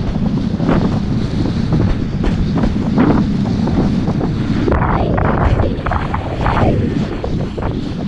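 Loud, steady wind buffeting on the microphone as a kiteboard rides over choppy water. The rush and splash of water under the board swells about three seconds in and again from about five to nearly seven seconds.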